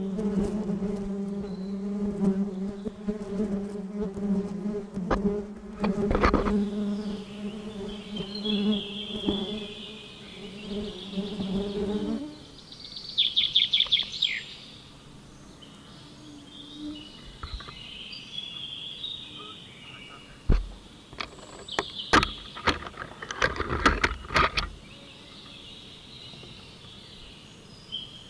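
Honeybees buzzing in a steady drone, which stops about twelve seconds in. After that come high chirps, a quick trill, and a run of sharp knocks near the end.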